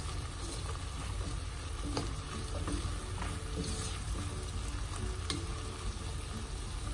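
Diced carrots, green beans and shrimp sizzling in a wok while a spatula stirs them, with a steady frying hiss and a few light scrapes of the spatula against the pan.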